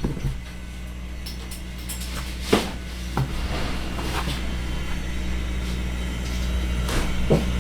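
Keyboard box and packaging being handled while the keycaps are unpacked: two sharp knocks, about two and a half and three seconds in, then a soft rustle of packaging, over a steady low hum.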